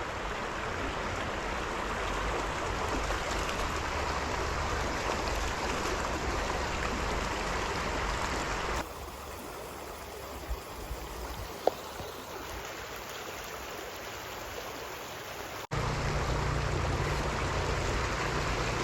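Flowing stream water rushing steadily. It turns abruptly quieter and duller for several seconds in the middle, then jumps back to full level, with a single click in the quiet stretch.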